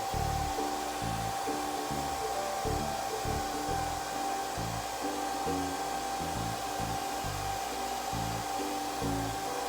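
Hand-held hair dryer blowing steadily, with a constant high whine over its rush of air, as it dries a wet kitten's fur. Background music with changing low notes plays over it.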